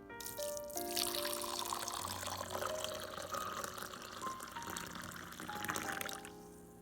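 Liquid being poured in a steady stream for about six seconds, stopping shortly before the end, over soft piano music.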